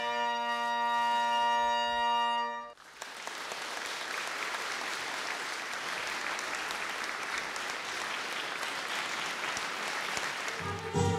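Brass fanfare held on a final chord, breaking off about three seconds in, followed by steady audience applause. Near the end, music starts up again.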